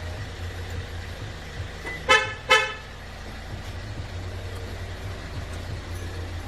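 Kia Sportage QL idling, with two short horn chirps about two seconds in, half a second apart: the signal a remote-start alarm gives to confirm a command.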